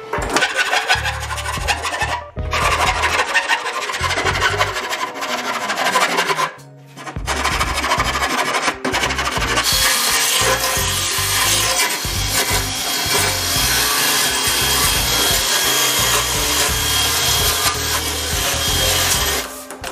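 A hand file rasps along the edges of an aluminium seat shell in irregular strokes. About ten seconds in, a cordless drill starts spinning a blue abrasive disc against the aluminium, a steady whir with a faint high whine that stops near the end.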